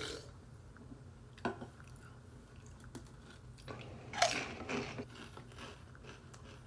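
Close-up chewing and crunching of Pringles potato crisps, with a sharp crunch about a second and a half in and a louder run of crunching around four seconds in.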